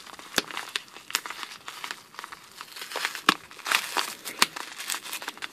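Kraft-paper bubble mailer crinkling and crackling as its sealed flap is worked open by hand, in irregular crackles with a few sharper snaps.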